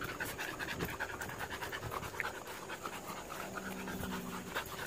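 American bully puppy panting quickly and steadily.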